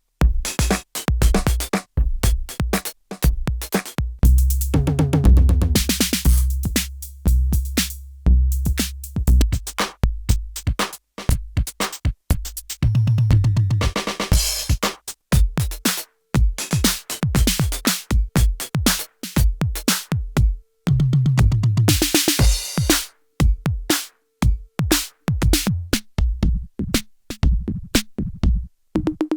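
IK Multimedia UNO Drum, a hybrid analog/PCM drum machine, playing a programmed pattern of analog kicks, snares and hi-hats. It has several fast stuttering rolls along the way, the longest about five seconds in.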